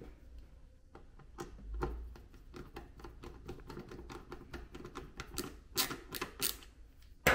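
Hand screwdriver driving a screw into an Instant Pot's plastic bottom cover: a run of small, irregular clicks and scrapes, sharper and louder in the last couple of seconds.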